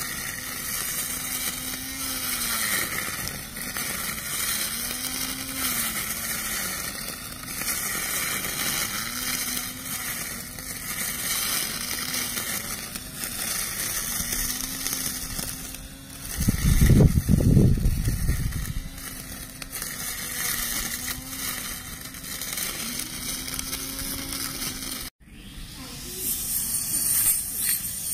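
Small electric string trimmer running, its motor tone dipping in pitch every couple of seconds as the spinning head bogs into tall grass, over the hiss of grass being cut. A loud low rumble about 17 seconds in, and the sound cuts out briefly near the end.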